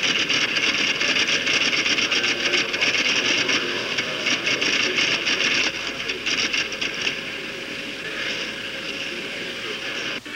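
Office machines clattering: rapid keystrokes and the mechanical rattle of electric typewriters and adding machines at work, a dense run of clicks that thins out somewhat in the last few seconds.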